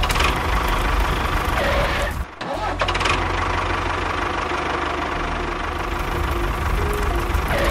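Tractor engine running steadily, with a brief break about two seconds in.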